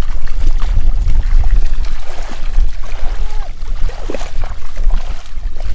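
A steady low rumble of wind on the microphone, with water sloshing and splashing as people wade through shallow marsh water.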